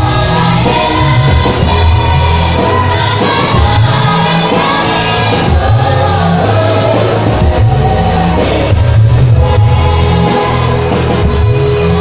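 Youth church choir singing into handheld microphones, with a strong bass accompaniment underneath.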